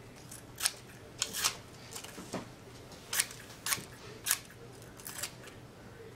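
Scissors snipping through the thin black material of a floppy disk, cutting it into pieces: about eight separate sharp snips at uneven intervals.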